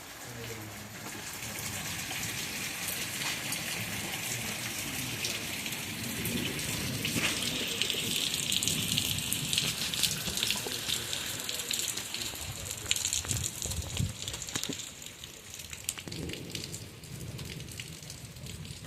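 Hail and rain falling, with a steady hiss and many sharp hailstone hits, heaviest in the middle and easing toward the end.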